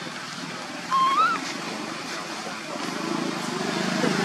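A baby macaque gives one short squeaky call about a second in, rising in pitch, over a steady outdoor background hiss; a low hum grows louder near the end.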